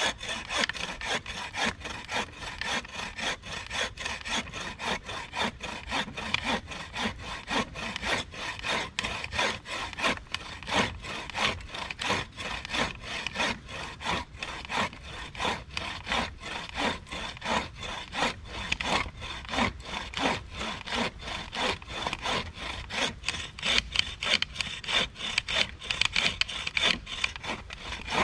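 Bow saw cutting through a tree trunk about six inches thick, in a steady rhythm of back-and-forth strokes, a little louder in the last few seconds.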